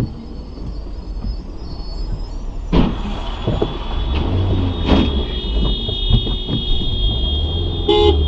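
Car collision heard from inside a car: a sharp crash impact about three seconds in and a second hit about two seconds later, over a steady engine and road rumble. A steady high-pitched tone follows, and a car horn sounds briefly near the end.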